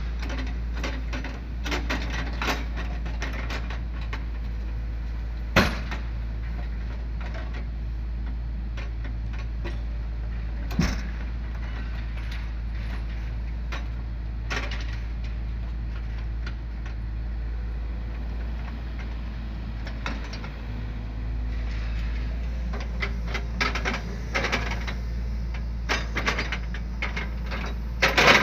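Hydraulic excavator's diesel engine running steadily while its Iwafuji log grapple works logs on a truck bed, with occasional sharp knocks and clunks of wood, busier near the end.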